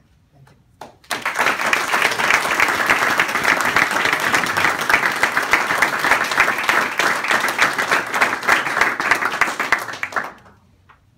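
Audience applauding, a room full of people clapping. It starts suddenly about a second in and dies away near the end.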